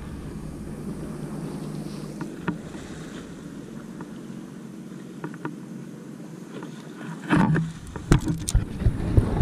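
Steady low hiss of wind and water with a few faint taps. About seven seconds in come rustling of clothing and a run of sharp clicks and knocks as the angler crouches over the landing net on the concrete.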